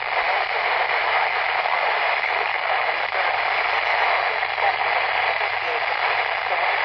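Handheld weather radio receiver giving a steady hiss of static while tuned to a weak, distant NOAA Weather Radio station that is cutting out.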